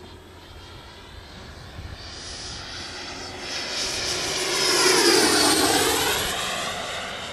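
BAE Hawk model jet with a Dyn-E-Max ducted fan making a close pass. Its high fan whine grows louder to a peak about five seconds in, drops in pitch as it goes by, then fades.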